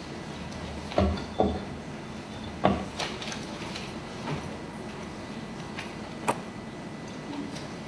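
A few dull knocks and thumps, three loud ones close together in the first three seconds and a short sharp click later, over a steady hiss.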